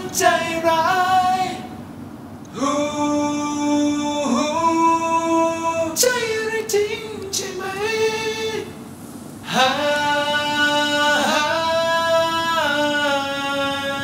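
Background song: a woman singing a slow ballad in long held notes, in three phrases with short breaks about two seconds in and about nine seconds in.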